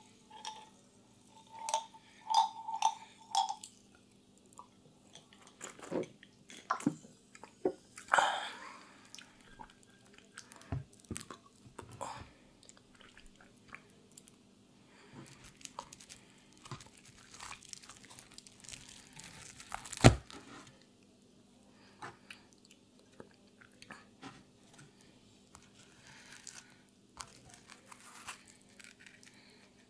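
Glass Codd-neck goli soda bottle being opened: a few glassy clinks, then a brief fizzing hiss about eight seconds in. A single loud knock about twenty seconds in, and soft tearing and eating sounds near the end as a pizza slice is pulled apart.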